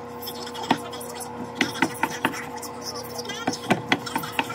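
Kitchen knife cutting raw chicken breast on a wooden cutting board: a series of sharp, irregular knocks as the blade meets the board, over a steady hum.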